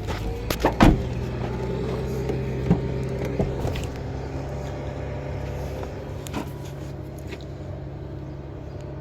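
A steady low engine hum, with a few sharp knocks and clicks in the first seconds and another about six seconds in.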